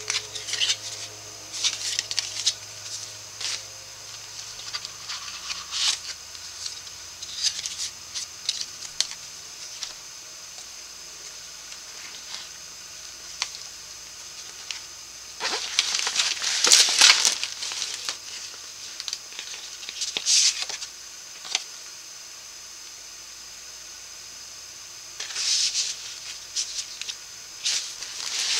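Cardstock pages and flaps of a handmade paper folio handled by hand: paper rustling and swishing with light taps and ticks, with several louder swishes in the second half as panels are unfolded.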